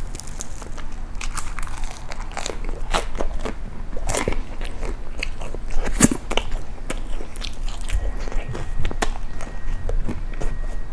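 Close-miked crunchy bites and chewing of kaya jam toast: the crust crackles and snaps in many small crunches, with one louder crunch about six seconds in.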